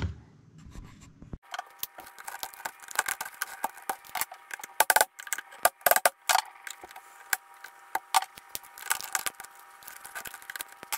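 Hard plastic being chiseled and snapped away: the mounting tabs inside a plastic jump-starter case cut off so a transformer will fit. One sharp click, then after a second's pause a dense run of clicks, scrapes and cracks.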